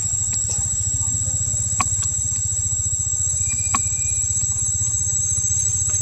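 A steady low engine hum with a continuous high-pitched whine above it and a couple of faint clicks.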